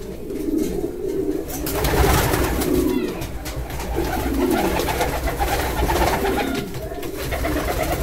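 Homing pigeons cooing, several coos overlapping one after another without a break.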